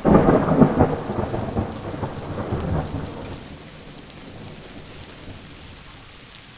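A clap of thunder that rumbles loudly for about three seconds and dies away, leaving steady rain falling.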